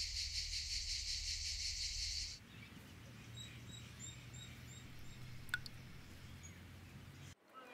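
Outdoor ambience in two parts. First about two seconds of a steady, fast-pulsing high insect chorus over a low rumble. Then it changes abruptly to a quieter scene with small bird chirps repeated several times, a faint low hum and a single sharp click.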